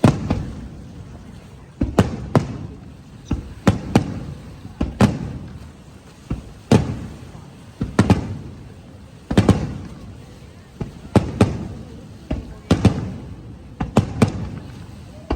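Aerial fireworks going off in an irregular series of sharp bangs, some in close pairs, each followed by a low rumble that fades away.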